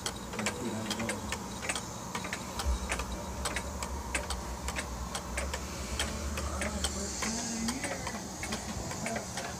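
Seth Thomas King Bee clock movement ticking, a quick, even beat of about four ticks a second. A low rumble runs underneath from about three seconds in.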